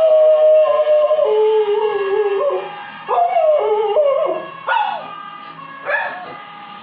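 A dog howling: one long wavering howl that drops in pitch, then a string of shorter howls that each rise sharply and fall away. A faint steady held tone with overtones sounds underneath.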